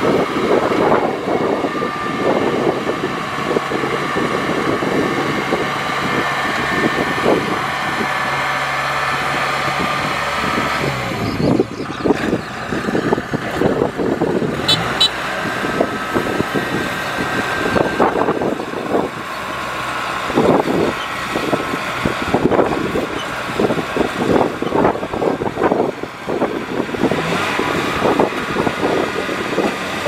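Kubota crawler rice combine harvester's diesel engine and machinery running steadily; the engine note shifts about eleven seconds in.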